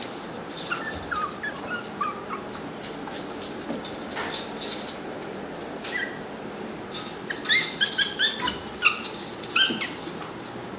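Small puppies (Chihuahua and Pomeranian) making short high-pitched yips while playing: a few soft ones in the first couple of seconds, then a quick run of louder yips about three-quarters of the way through.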